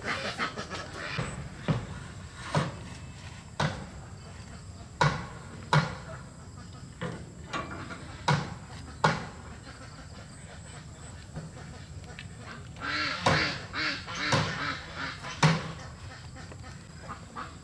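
Ducks quacking in short, separate calls about once a second, with a busier run of calls about thirteen to fifteen seconds in.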